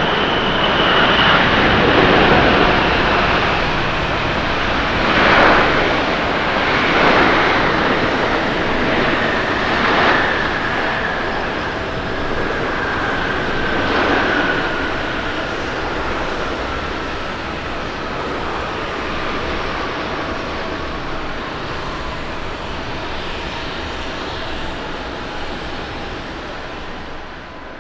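Boeing 747-8's four GEnx jet engines in reverse thrust on the landing rollout: a broad roar with a whining tone that slowly falls in pitch as the engines spool down. The roar swells several times in the first half, then fades gradually.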